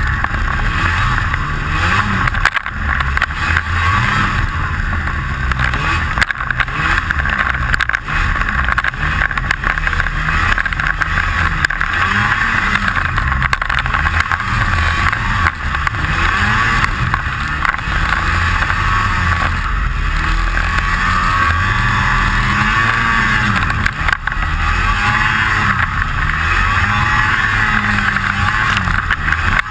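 Snowmobile engine running under throttle, its pitch rising and falling again and again as the throttle is worked, with a rattle of unknown cause throughout.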